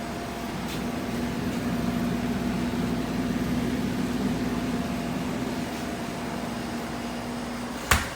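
Commercial glass-door refrigerator's refrigeration unit running with a steady low hum, swelling a little in the middle. A single sharp knock near the end.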